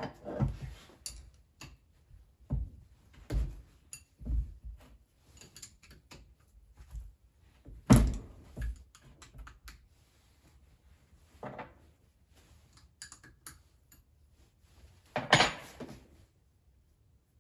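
Steel parts of a hydraulic cylinder being handled and knocked against the vise and wooden workbench during disassembly: scattered clunks and clicks, with a sharp knock about halfway through and a cluster of knocks near the end.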